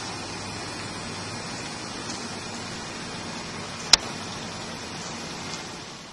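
Steady hiss-like noise that fades in and out, with one sharp click about four seconds in.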